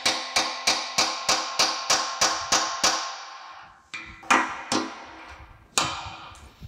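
Ball-peen hammer striking a cold chisel against the cast-iron pan of a Champion forge, knocking off old bolts: a quick run of about ten ringing metal blows, roughly three a second, then a short pause and a few slower blows, the loudest about four seconds in.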